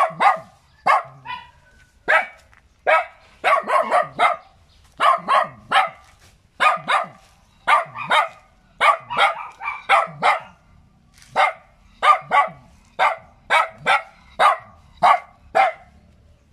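Small dog barking repeatedly in short, sharp barks, singly and in quick runs of two to four, stopping near the end.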